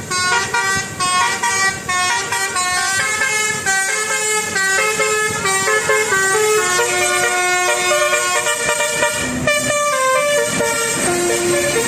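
A bus's basuri telolet horn, a multi-tone musical air horn, playing a melody: loud chords of horn notes stepping up and down a few times a second, with a short dip about nine and a half seconds in.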